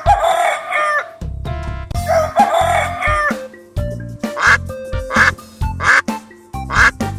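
A rooster crowing twice, each crow about a second long, over children's background music; after the crows, the music with a steady beat carries on.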